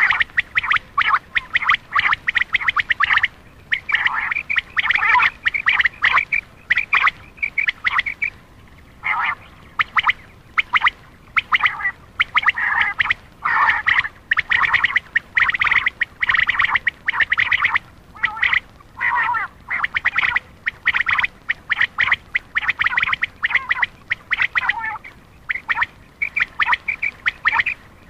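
Common quail calls, a recorded lure to draw in male quail: quick runs of sharp, rapidly pulsed notes, repeated in bursts of about a second with short gaps.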